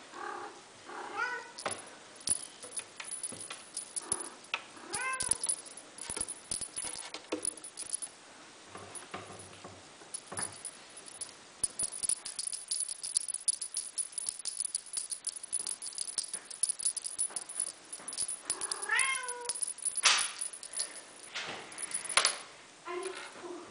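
A kitten mewing in short high calls, a few times across the stretch, with the rattling and clicking of a feather-wand toy shaken and knocked against wooden stair treads. The rattling runs densest through the middle.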